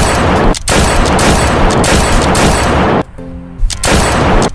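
Gunfire sound effect: long bursts of rapid automatic shots, broken briefly about half a second in. There is a pause of about half a second with a short pitched sound around three seconds in, then the firing resumes.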